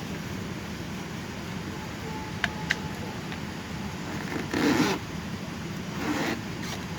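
Steady airliner cabin air and ventilation noise, with two light clicks between two and three seconds in and a brief rustling swish near five seconds and again near six.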